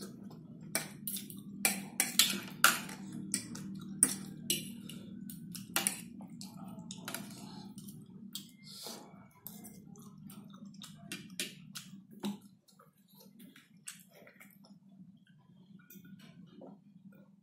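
A person eating noodles: slurping and chewing, with forks clicking and scraping on the plate, densest in the first six seconds and sparser after.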